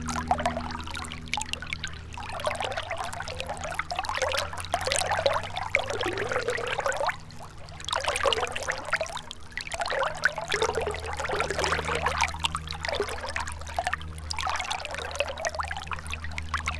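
Gentle river running and trickling, swelling and easing in uneven surges every few seconds. A low steady hum lies underneath and fades for a few seconds in the middle.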